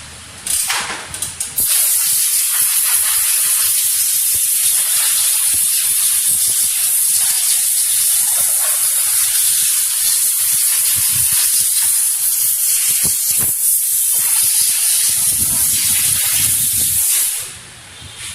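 A high-pressure jet hisses loudly and steadily during bike servicing. It starts about two seconds in and cuts off near the end.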